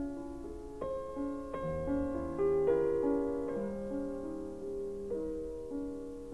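Background music: slow, gentle solo piano, with a new note or chord struck about every second and left to ring and fade.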